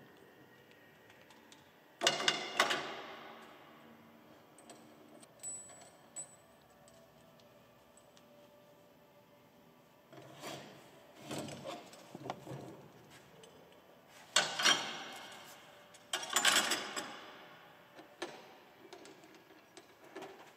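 Metal-on-metal clanks and rattles from the corn head's snout connection being worked by hand: a locking lever, linchpin and bolt. There are several sharp clanks with brief ringing: a loud one about two seconds in, a few lighter rattles around the middle, and two loud clusters in the last third.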